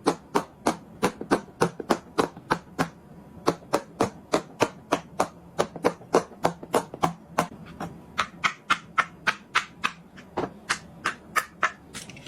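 Silicone pop it fidget toy having its bubbles pressed through one after another in quick succession, a rapid run of sharp pops about four or five a second.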